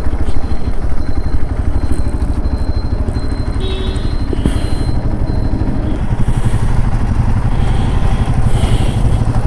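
Hero Xpulse 200 4V's single-cylinder engine running, its firing pulses a steady low beat that grows a little stronger in the second half.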